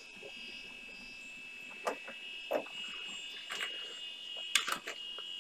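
A steady high-pitched whine from the running IBM PC330 486 computer, with about five short clicks between about two and five seconds in.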